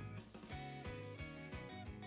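Instrumental background music with a steady beat and sustained melodic notes.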